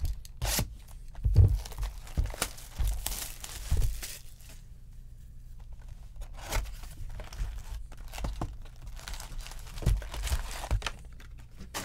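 Plastic wrapping torn and crinkled off a cardboard box of 2020 Bowman Draft baseball cards, with scattered knocks and rustles as the box is handled and opened. Near the end the foil-wrapped packs are lifted out of the box.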